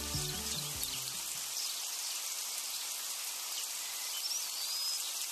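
Music's last low notes die away in the first second and a half, leaving a steady high hiss of outdoor nature ambience, with a short rising chirp a little before the end.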